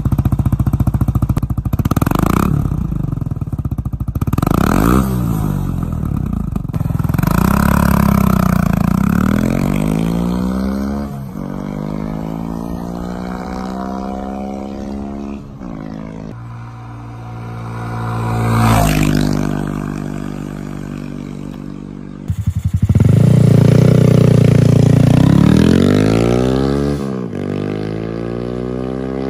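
Honda Monkey mini bike's single-cylinder engine accelerating through the gears through an open aftermarket-style exhaust, its pitch climbing in each gear and dropping back at each shift. It swells loudest about two-thirds of the way in, then comes back loud again for another run up through the gears.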